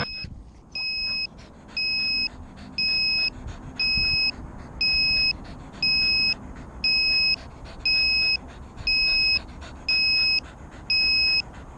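An electronic beeper sounding a steady high-pitched beep about half a second long, about once a second, beginning about a second in and repeating through to the end, over a faint low background hiss.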